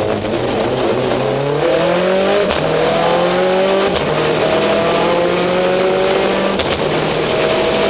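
Rally car engine heard from inside the cabin, accelerating hard and upshifting several times. The pitch climbs in each gear and drops back at each shift, and a few of the shifts bring a sharp crack.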